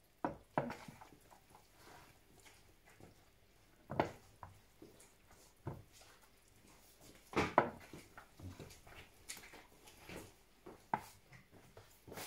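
Scattered clinks, knocks and scrapes of a serving spoon against a baking tray, ceramic bowl and plate as food is dished out, the loudest knocks about four seconds and seven and a half seconds in.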